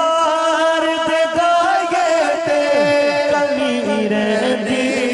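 A man singing a naat into a microphone, drawing out one long held note with slow melodic turns, its pitch stepping lower about halfway through.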